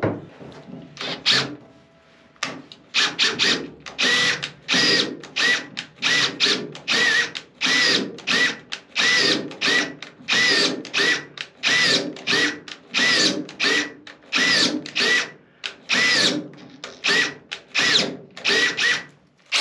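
Makita cordless drill boring into a steel floor beam, run in short repeated bursts, a little under two a second, the motor pitch rising and falling with each burst.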